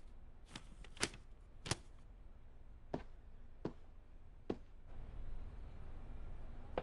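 Footsteps on a hard floor: a series of sharp heel clicks at uneven steps, roughly one every half second to second.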